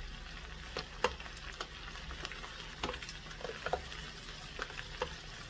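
Wooden spoon stirring shredded cabbage in a stainless steel pot, with irregular knocks and clicks of the spoon against the pot over a low, steady frying sizzle.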